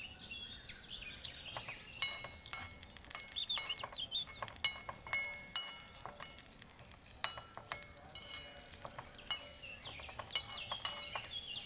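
Light metallic clinks at irregular intervals, many strikes, each leaving a short ringing tone at a few fixed pitches. Faint bird chirps can be heard at the start and near the end.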